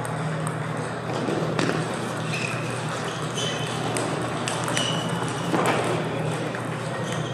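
Table tennis balls clicking off bats and tables at several practice tables in a large hall, an irregular scatter of sharp clicks and short pings over a steady low hum.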